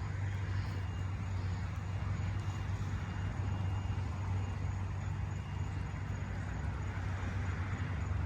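Steady outdoor background noise at night: a continuous low hum with an even hiss over it, unbroken, with no distinct events.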